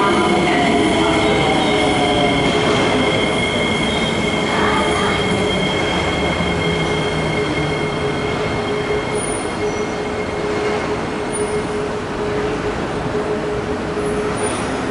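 SMRT C151A electric metro train slowing to a stop at a platform: steady high-pitched whine tones over rumbling wheel noise, gradually getting quieter, with the highest whine dropping away about two-thirds of the way through as the train comes to a halt.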